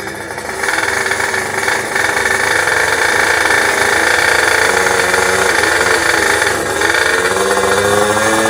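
Two-stroke underbone drag bike engines revving hard with a dense buzzing note, getting louder over the first second and held high, with a short dip about seven seconds in and a rise in pitch near the end.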